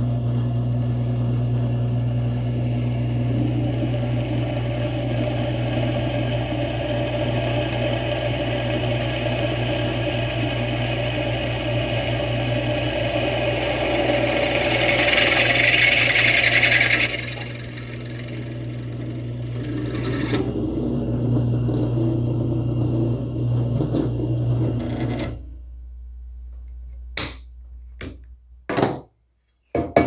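A homemade bench drill press driven by a washing-machine motor runs with a steady hum while an 8 mm bit drills through 5 mm steel plate without stalling. The cutting noise grows louder to a peak about 15–17 seconds in, with a brief high screech. The motor runs on more quietly and stops about 25 seconds in, followed by a few knocks as the workpiece is handled.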